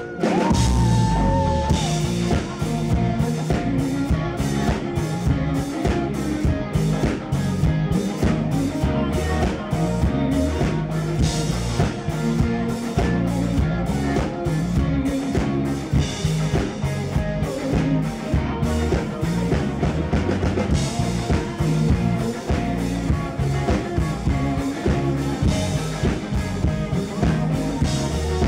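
Live rock band playing at full volume, with a kit drummer keeping a steady beat under electric guitar.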